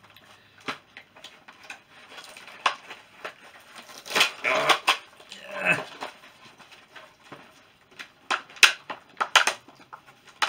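Plastic toy packaging and an action figure being handled: scattered clicks, taps and crinkles, busiest about four to six seconds in and again near the end.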